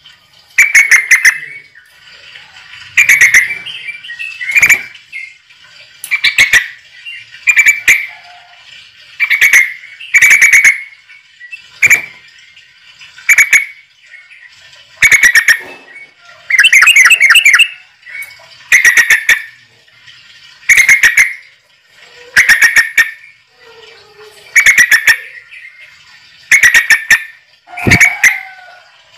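A bird calling over and over: short, loud phrases of rapid chirping notes, repeated about every one and a half to two seconds.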